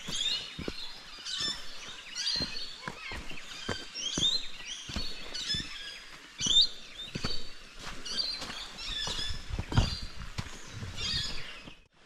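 Wild birds chirping and singing, many short rising and falling calls overlapping, over a walker's irregular footsteps on a dirt trail.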